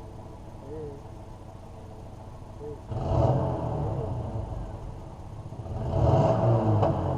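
A few short hoot-like calls, then a car engine revs up twice: once about three seconds in and again, louder, near the end.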